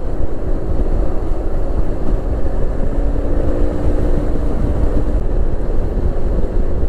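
Yamaha NMAX scooter cruising at highway speed: a heavy, steady rumble of wind on the microphone and road noise, with a faint steady hum from the scooter's single-cylinder engine underneath.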